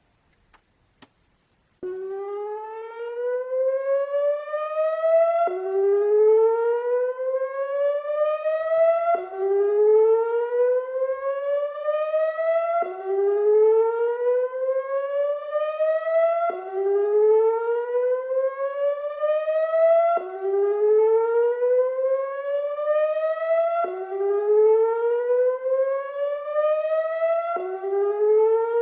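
ATI HPSS-16R electronic warning siren sounding its whoop signal in a weekly test. It starts abruptly about two seconds in, then repeats a rising whoop that climbs in pitch for about three and a half seconds and drops sharply back to begin again, about eight whoops in all.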